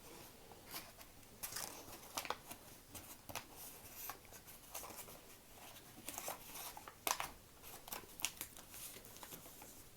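Origami paper rustling and crinkling in short irregular bursts as it is folded, its creases inverted and flattened by hand.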